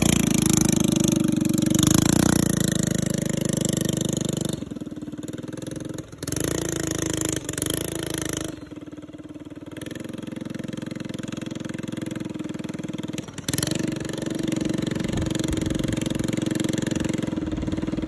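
Go-kart's small gasoline engine running and pulling the kart away, loud close up at first, then more distant as the kart drives off down the road, with several abrupt jumps in level.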